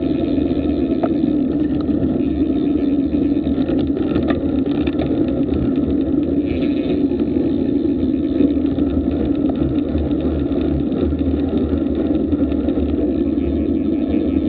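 Steady rush of wind over an action camera's microphone on a fast road-bike descent, at about 20 to 27 mph. The noise is loud and unbroken and sits low in pitch.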